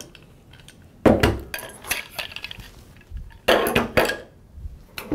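Metal clanks and rattles of the dog wheelchair's tubular aluminium frame as the extender bars are popped out of the rear cart, with sharp knocks about a second in and again around three and a half seconds in.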